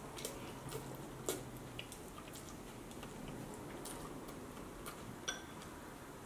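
A child eating noodles with plastic training chopsticks from a bowl: faint, scattered small clicks and taps of chopsticks and bowl.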